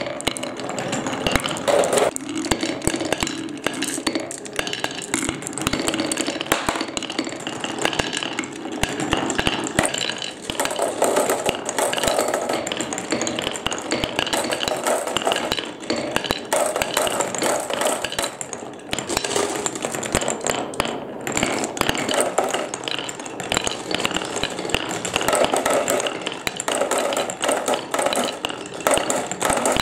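Several glass marbles rolling along grooved wooden marble-run tracks: a continuous rolling rumble that swells and fades every few seconds, with many quick clicks and clinks as the marbles knock against each other and the wooden blocks.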